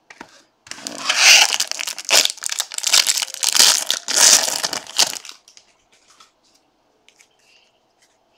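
Foil wrapper of a 2023 Bowman Jumbo baseball card pack being torn open and crinkled: loud crackling from about a second in to about five seconds in, then only faint rustles.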